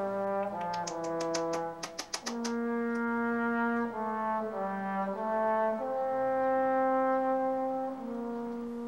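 Background music: a slow melody of held notes that change pitch step by step, with a quick run of sharp clicks in the first two seconds or so.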